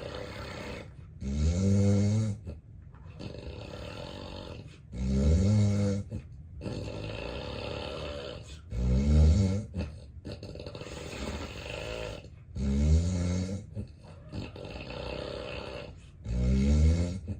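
A man with severe obstructive sleep apnea snoring heavily: five loud snores, about one every three and a half to four seconds, with quieter breathing between them.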